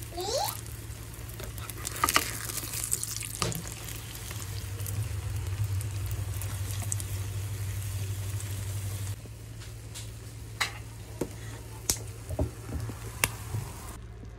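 Egg frying in oil in a pan, sizzling steadily. About nine seconds in the sizzle drops away, and a few sharp clicks and knocks follow.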